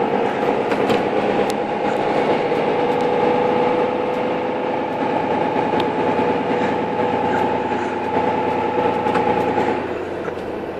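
Cabin noise inside a moving bus: a steady engine and road drone with a held whine, which drops away shortly before the end.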